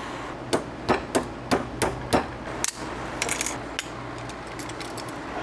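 Hammer striking a ski-binding brake assembly: about seven sharp metal taps in the first three seconds, followed by a brief metallic rattle and a few lighter clicks of parts being handled.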